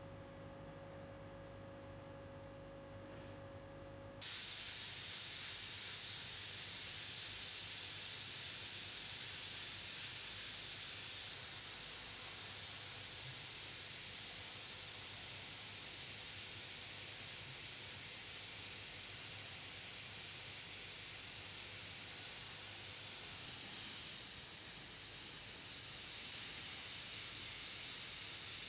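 A Skylite battery electric eraser runs with a steady whirring hum for about the first four seconds. Then a Richpen 213 airbrush with a 0.3 mm nozzle starts spraying: a sudden, steady high hiss of air that drops a little in level about eleven seconds in.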